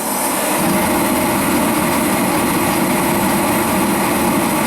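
Sears forced-air torpedo heater running steadily after start-up: the blower fan motor and burner make a constant loud rushing roar, the heater now working.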